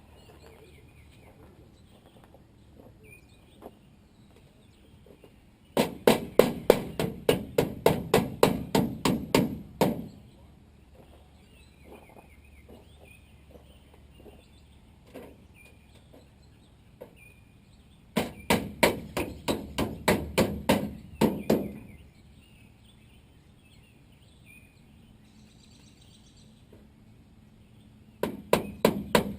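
Hammer driving nails, probably into a wooden fascia board: three bursts of quick, evenly spaced blows, about four a second, the last starting near the end. Faint birdsong between the bursts.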